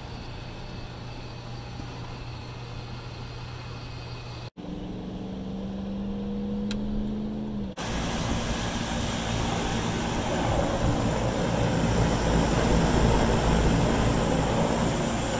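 Carrier rooftop HVAC unit running: steady fan and motor noise, broken by two abrupt cuts. In the middle stretch a steady motor hum stands out, and the last half is a louder rushing fan noise with a low rumble.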